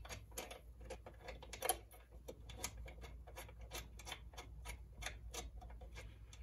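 Faint, irregular small clicks and taps, a few a second, as a small metal bracket is set on a shift lever and its screw is turned in by hand.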